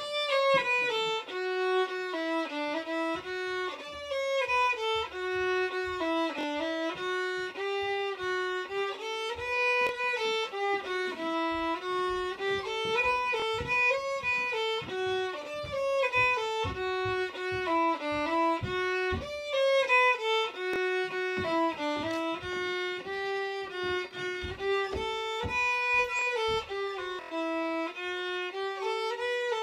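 Solo fiddle playing a waltz tune, a single bowed melody line in lilting phrases, starting right at the beginning.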